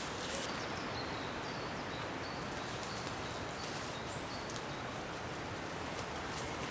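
Steady outdoor background hiss with a few short, high bird calls, one of them about four seconds in.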